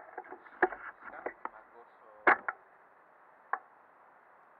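Handling knocks and clicks on the action camera as it is set in place: a handful of sharp knocks in the first half, the loudest a little past two seconds in and one more later, over a faint steady hiss.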